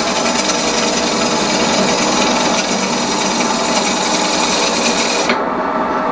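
Turning tool cutting into a spinning wood blank on a Union Jubilee wood lathe, a continuous rough scraping as the out-of-round blank is roughed down. About five seconds in the cut stops suddenly and the lathe runs on alone.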